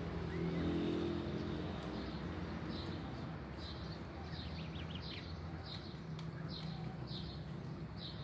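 Domestic goslings peeping: short high calls repeated about every two-thirds of a second from about three seconds in, over a steady low hum.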